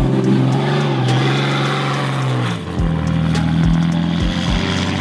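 Pickup truck engine revving hard under load as its rear wheels spin and spray soft sand, the truck stuck and struggling for grip; the engine note shifts about two and a half seconds in.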